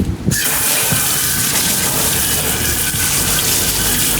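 Water spraying hard from a sink hose onto a scoop coater, rinsing out leftover screen-printing emulsion: a steady hiss that comes on about a third of a second in.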